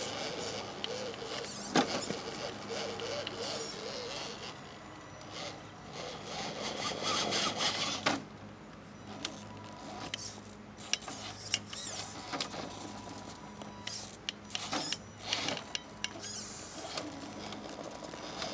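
Radio-controlled scale rock crawler's electric motor and gears whining, the pitch wavering with the throttle, as it crawls over rocks, with a sharp knock about two seconds in and scattered scrapes and clicks of tyres and chassis on stone.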